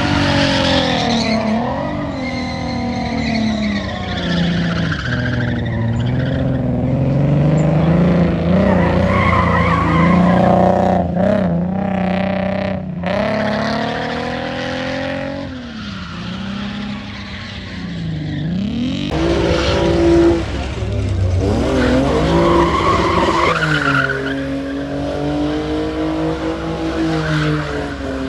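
Drift cars' engines revving hard, their pitch climbing and falling again and again as the cars slide sideways, with tyres skidding and squealing on the asphalt.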